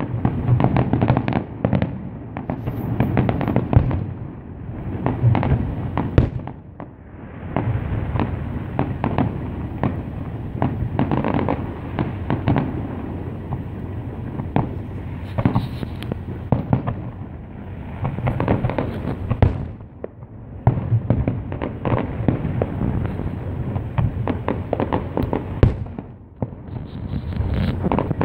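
Aerial fireworks shells bursting one after another in a dense string of booms and bangs, with a few brief lulls.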